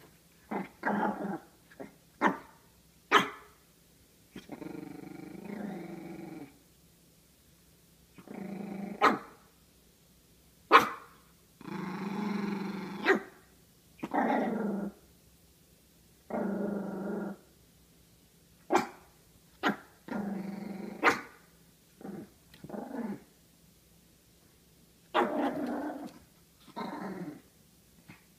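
A small dog, a Pomeranian, growling again and again in drawn-out growls of a second or two, broken by short, sharp barks. It is play growling at a toy during a game of fetch.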